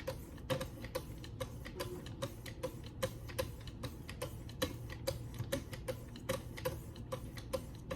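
Wicked Edge guided sharpener's stones stroked back and forth along a D2 steel knife blade, making a steady run of short clicks and scrapes, about four a second.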